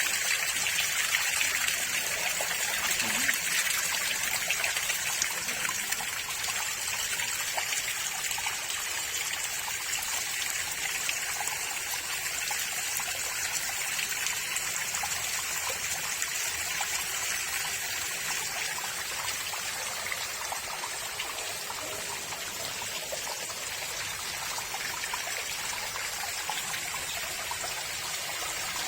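Small garden waterfall, water falling and splashing in a steady trickling rush.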